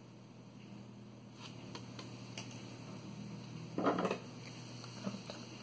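Hands handling a grosgrain ribbon bow and its kite thread: faint rustling and a few light clicks, with one short louder scuff about four seconds in.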